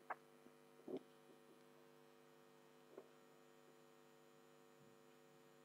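Near silence: a faint steady electrical hum, with a few soft clicks about a tenth of a second in, near one second, and about three seconds in.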